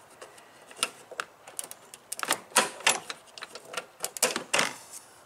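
Plastic push-pin trim clips being pried out of a plastic engine-bay cover with a plastic trim-removal tool: an irregular series of sharp clicks and snaps, thickest in the second half.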